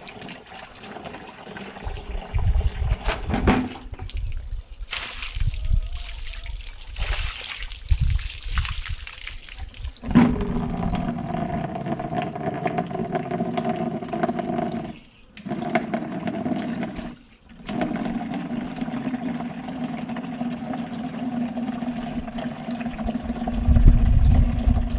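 Water being poured over a dog to rinse him: splashing at first, then a steady pouring stream with a held tone, broken off briefly twice.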